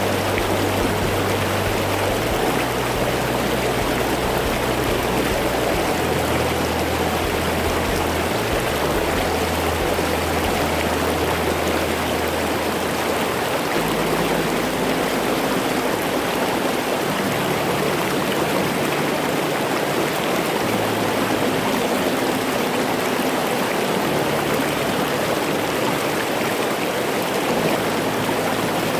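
Mountain valley stream rushing steadily over rocks, close up, with low hum-like tones underneath that shift every few seconds.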